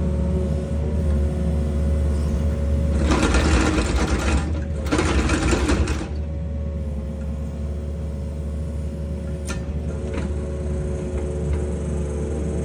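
Excavator engine running with a steady hydraulic whine as it drives an auger. About three seconds in, the machine grows louder with a rushing, grinding noise in two bursts lasting about three seconds, then settles back to its steady run.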